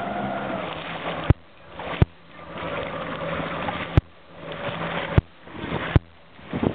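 Jet ski engine idling, the sound swelling and fading in surges about a second long, with a few sharp clicks scattered through.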